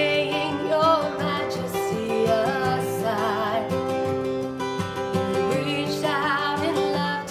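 A woman singing with vibrato, accompanied by an acoustic guitar.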